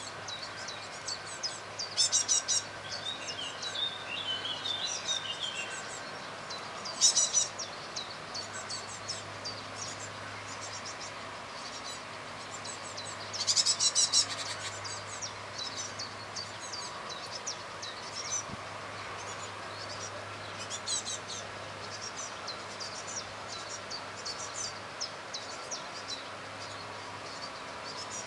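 Great tits calling at a nest box: a string of short, high chirps, with louder bursts of rapid chirping about 2 and 7 seconds in and the loudest burst around 14 seconds.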